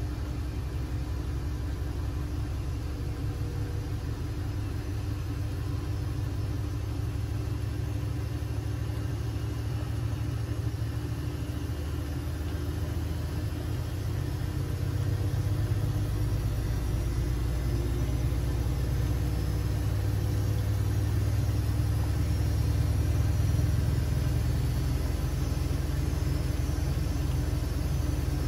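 Siemens Siwamat 6143 front-loading washing machine running a boil wash: the motor and turning drum give a continuous low rumble and hum, which grows louder about halfway through.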